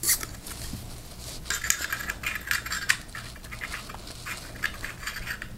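Metal pommel of a Saberforge Reborn lightsaber being screwed back onto the hilt: light metallic scraping and clicking of the threads and parts, in quick irregular runs of small clicks.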